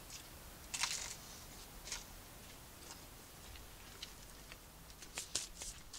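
A few short crisp crunches and crackles from toasted bread being handled. The loudest comes about a second in, with a quick cluster near the end.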